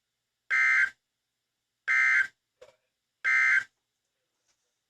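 NOAA Weather Radio SAME end-of-message burst: three short, identical bursts of buzzing digital data tones, about 1.3 seconds apart. They mark the end of the severe thunderstorm warning broadcast.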